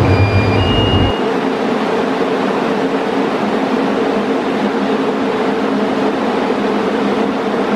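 Steady mechanical hum with two low droning tones from a Doppelmayr Garaventa funicular car at the station platform. A deeper rumble under it cuts off about a second in.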